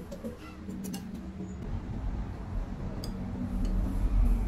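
Chopsticks clicking lightly against ceramic bowls a few times, over a steady low hum. A low rumble builds from about halfway through and is loudest near the end.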